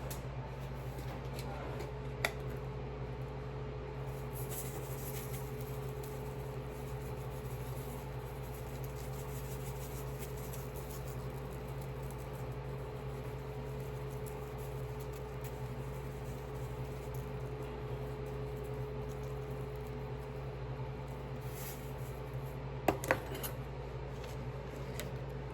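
Steady low hum of kitchen background noise, with a light click of kitchenware about two seconds in and a few quick clinks near the end.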